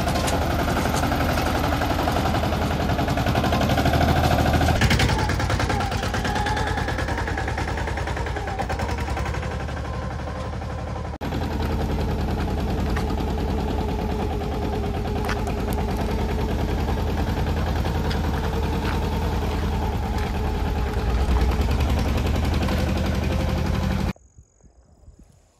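Mini tractor's diesel engine running under way with a rapid, even chugging while it pulls a loaded trolley. The sound cuts off suddenly near the end.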